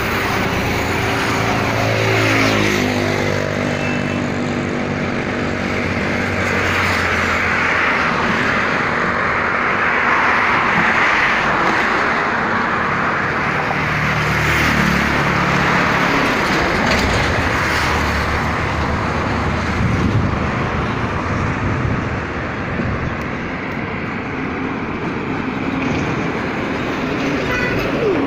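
Highway traffic going past: continuous tyre and engine noise, with passing vehicles whose engine tone drops in pitch as they go by, most clearly about two seconds in and again around fifteen seconds in.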